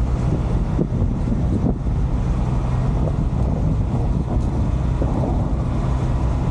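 Inside a moving truck's cab: steady low engine and road rumble while driving along a paved road.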